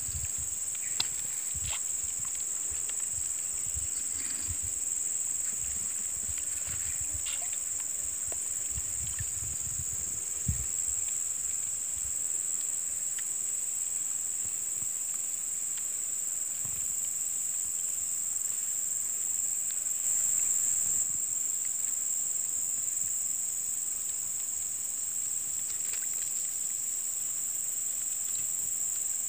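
Insect chorus, a steady high-pitched drone that swells briefly about twenty seconds in. Low thumps and rumbles come and go during the first ten seconds or so.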